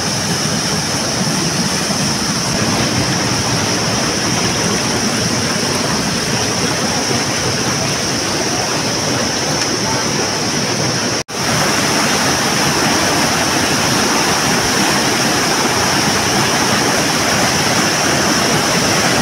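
River water rushing over rocks, a steady full-range rush with a brief dropout about eleven seconds in.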